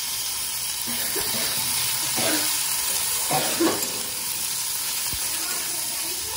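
Chopped tomato, onion and green chilli sizzling in hot oil in a kadai, with a steady hiss. A metal spatula scrapes the pan as the vegetables are stirred, a few strokes about two and three and a half seconds in.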